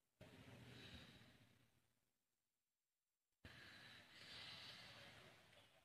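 Near silence: faint room tone, dropping out almost completely for about a second and a half in the middle.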